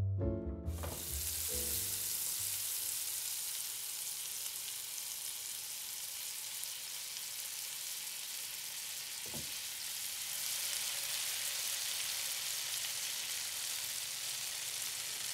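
Battered pork strips deep-frying in hot oil, a steady sizzle that begins about a second in as the last notes of background music fade out. A single brief soft knock about nine seconds in.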